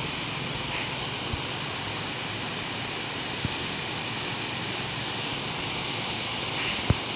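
A steady, even rushing noise with a few sharp clicks, the loudest near the end.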